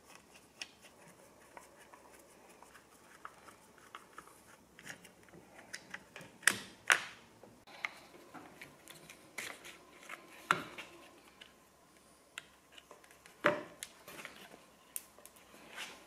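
A screwdriver and hands working the rubber twist grip off an outboard motor's tiller handle: scattered light clicks and scrapes, with a few sharper knocks, two of them close together about halfway through.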